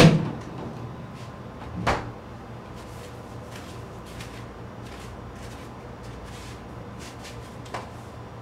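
A small cabinet door shut with a loud thud that rings out low for about half a second, a lighter knock about two seconds later and a faint tap near the end, over a steady low hum.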